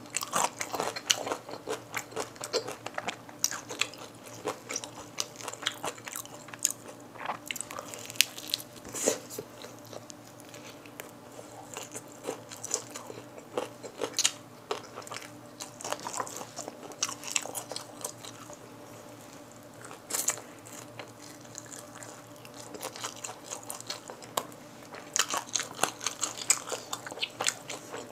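Close-up crunching, biting and chewing of Kyochon Red Combo glazed fried chicken, its crisp coated skin crackling between the teeth. The crunches come thick and fast at the start and again in the last few seconds, thinning out to slower chewing in the middle.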